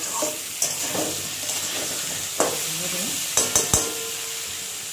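Potato and pointed gourd pieces sizzling in hot oil in a metal kadai while a metal spatula stirs and scrapes them. Three sharp knocks of the spatula on the pan come about three and a half seconds in.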